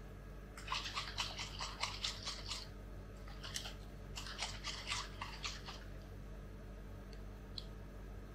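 Plastic bottle of liquid ice cream base being shaken hard in quick strokes, about four or five a second: two bursts of a couple of seconds each with a single shake between.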